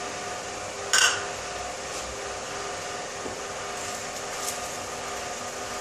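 Steady hiss and sizzle of beaten eggs cooking in hot oil in a non-stick kadai over a gas burner, with one sharp light knock about a second in.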